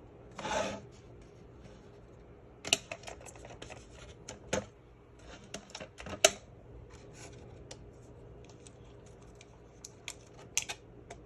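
Irregular small clicks and light taps of hand handling, with a brief rustle about half a second in and a bunch of sharper clicks near the end.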